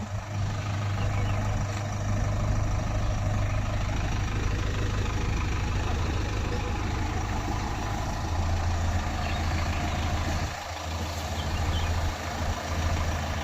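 JCB 3DX backhoe loader's 76 hp diesel engine running steadily at idle, with a brief dip about ten and a half seconds in.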